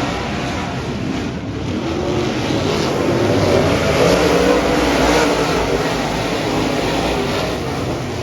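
Dirt-track modified race car engines running hard at racing speed, swelling louder about halfway through.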